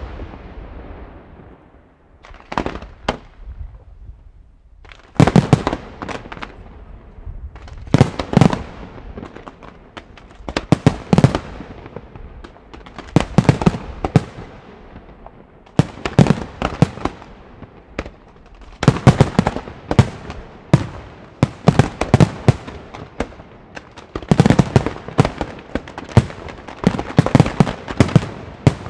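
Aerial fireworks shells bursting in a professional display: clusters of sharp bangs every two or three seconds, coming faster and denser near the end as salvos fire together.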